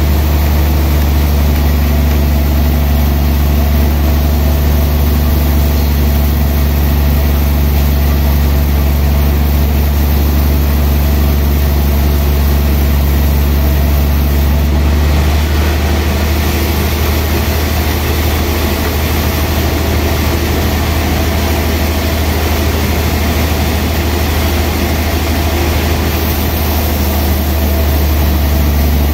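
Large log band saw running with a steady, heavy low hum. From about halfway through, a rougher hiss joins in as the blade cuts along a big log, easing again near the end.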